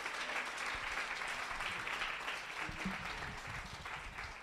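Audience applauding, the clapping gradually fading.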